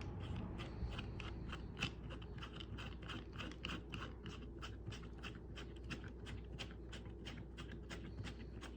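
A part of a Power Probe 3 circuit tester being screwed back in and tightened by hand, making rapid, regular small clicks, about five a second.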